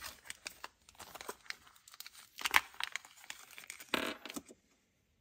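Small retail parts package being crinkled and torn open by hand to get a pinion gear out, with irregular crackling and a couple of louder rips partway through.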